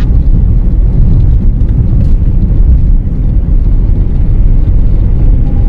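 Steady low rumble of a car driving at highway speed, heard from inside the cabin: road and engine noise.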